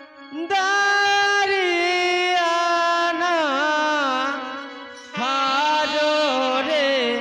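A wind instrument plays a slow melodic interlude: long held notes, then wavering ornamented turns, over a steady low drone. The melody fades and drops out briefly about five seconds in, then comes back loud.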